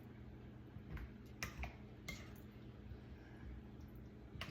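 A few faint clicks and taps of a spoon against a baking dish while beans are stirred in it, mostly between one and two and a half seconds in.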